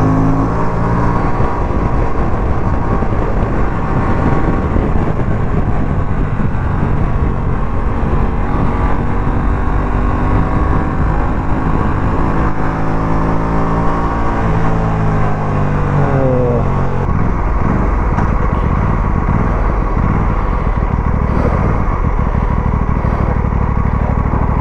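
Aprilia RS 457's parallel-twin engine running under way, with wind noise over it. Its pitch holds for a while, then falls steadily about fifteen seconds in as the bike slows, and the engine runs on lower and rougher.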